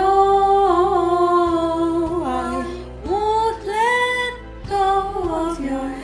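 Recorded song with a woman singing: a long held note on the word "all", then wordless vocal phrases that slide between pitches, over a quiet steady accompaniment.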